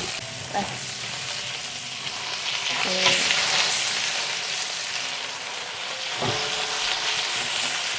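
Water spinach and chilli sizzling hard in a steel wok as they are stir-fried. A wooden utensil knocks against the pan a few times. The sizzle swells about three seconds in.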